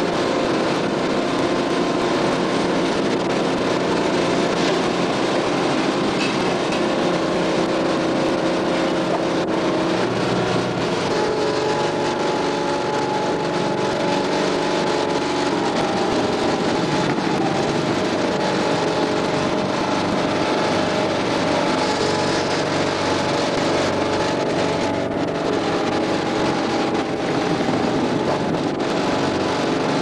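Potato hopper's conveyor floor running with a load of potatoes, its drive machinery giving a steady mechanical drone over a rumbling noise. The drone's pitch shifts about ten seconds in.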